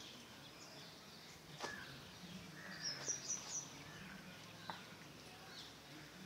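Small birds chirping and calling in the trees, with a quick run of three high notes about three seconds in, over a steady low hum. Two sharp clicks come through, one about a second and a half in and one near the end.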